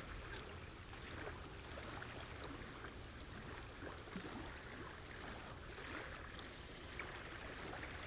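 Faint water ambience of gently lapping lagoon water, with a couple of faint ticks.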